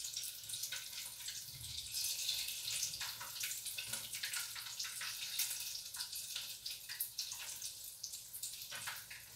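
Zucchini fritters frying in hot oil, a steady sizzle with frequent small crackling pops.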